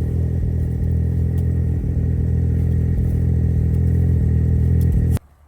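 Small engine running steadily at a constant speed, then cutting off suddenly about five seconds in.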